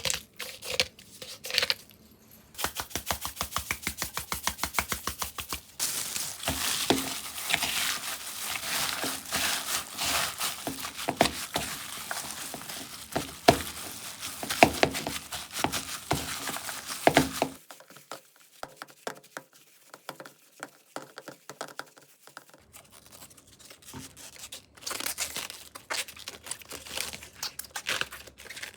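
Hands preparing food: a quick run of evenly spaced taps, then a long stretch of crinkling and rustling with sharp clicks while the ground-meat filling is worked. After a short quiet spell, cabbage leaves crinkle as they are handled.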